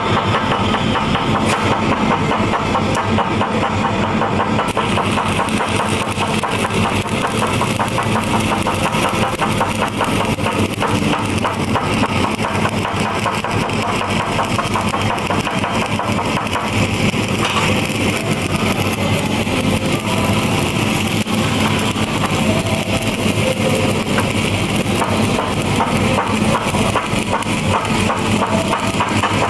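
Stick welding with a 7018 electrode: a steady, continuous crackle of the arc as the rod burns in slow circles on a cap pass, over a steady engine hum, likely an engine-driven welding machine.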